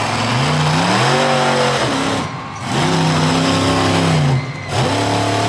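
Monster truck's V8 engine revving hard, its pitch climbing and falling back three times, with short dips as the throttle is lifted between bursts.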